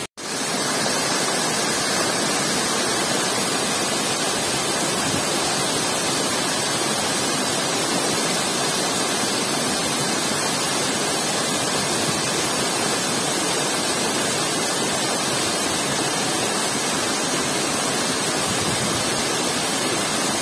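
Small waterfall pouring down stepped rock ledges into a shallow rocky pool: a steady, even rush of falling water.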